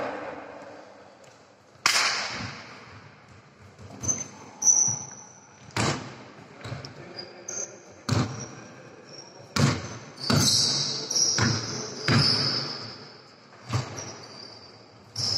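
Basketball bouncing on an indoor court at irregular intervals during play, each bounce echoing in the hall, with short high squeaks of players' shoes on the floor in between.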